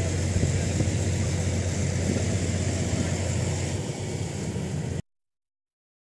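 Diesel engine of a Morbark 40/36 whole-tree chipper running steadily with a strong low drone. It cuts off abruptly about five seconds in.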